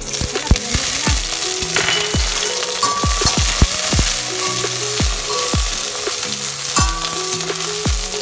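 Scallops and garlic frying in hot oil in a wok: a loud, steady sizzle that jumps up at the start.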